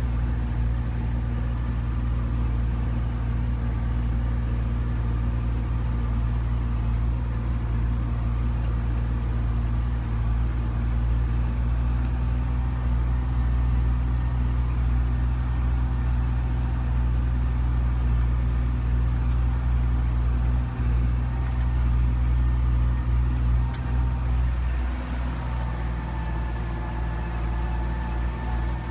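Belarus MTZ 820 tractor's four-cylinder diesel engine running steadily under load while pulling a seven-disc plough, heard from inside the cab. Near the end the engine note shifts and the level eases slightly.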